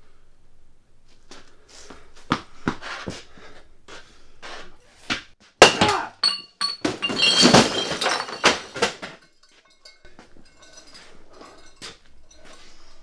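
A string of knocks and thuds, then a loud crash and clatter of hard objects being knocked about, with ringing clinks, around the middle. It dies down to faint sounds afterwards.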